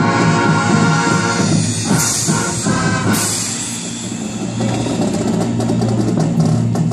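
Marching band playing live outdoors: a full held brass chord, two crashing hits about two and three seconds in, then a softer, lower sustained chord.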